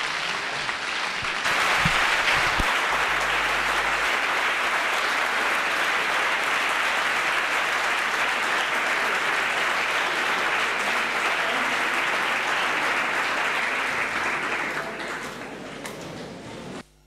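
Audience applause, many people clapping. It swells about a second and a half in, holds steady, thins out near the end and then cuts off suddenly.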